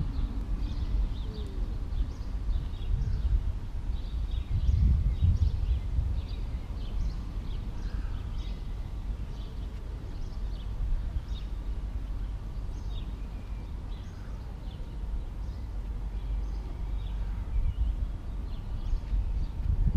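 Wind buffeting the microphone in low gusts, with small birds chirping over it in many short, repeated calls.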